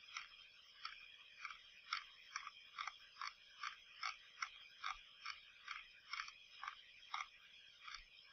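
Faint, evenly paced clicks of a computer mouse's scroll wheel turned notch by notch, about two clicks a second, while paging down through a document.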